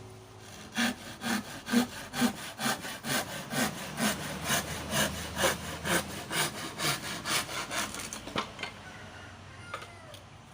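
Hand saw cutting a piece of lawaan hardwood in steady back-and-forth strokes, about two a second, stopping about eight seconds in.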